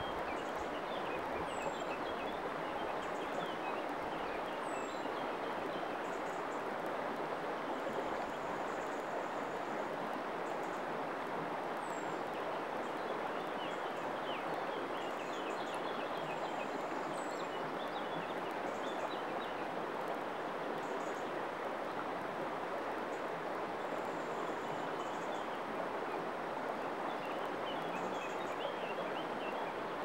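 Shallow river water flowing steadily over pebbles and rocks, with small birds chirping now and then above it.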